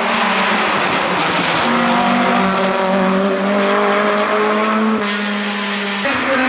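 Opel Kadett race car's engine running loud at high revs as the car drives through a bend and away, holding a fairly steady note for a few seconds. The sound changes abruptly near the end.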